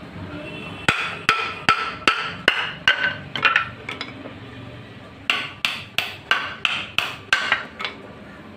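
Hammer blows in two quick runs of about eight strikes each, around two and a half a second, with a pause of about a second between the runs. Each blow gives a sharp knock with a short ringing note.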